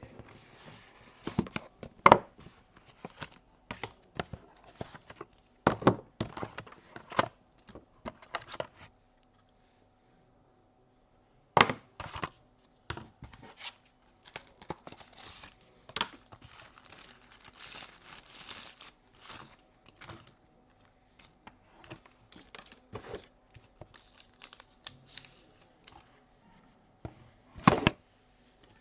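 Phone unboxing handling sounds: plastic wrap and paper crinkling and tearing, mixed with sharp clicks and knocks as the box and its parts are handled. There is a pause of about two seconds roughly a third of the way in, and a loud knock near the end.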